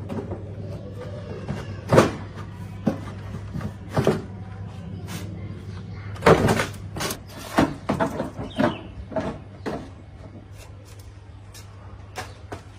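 Irregular knocks, clicks and clatter of parts and tools being handled during repair work on an old electric fan, over a steady low hum. The strikes are most frequent in the middle of the stretch.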